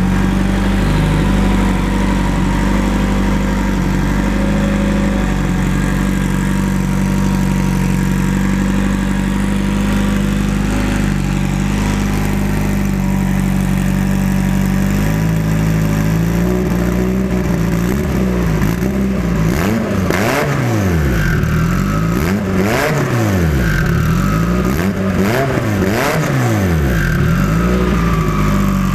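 Turbocharged Honda GSR four-cylinder with Skunk2 Pro1 camshafts, running on its newly wired coil-on-plug ignition. It idles steadily, then from a little past halfway it is revved by hand at the throttle several times, the pitch rising and falling with each blip, and a faint whistle falls away after each rev.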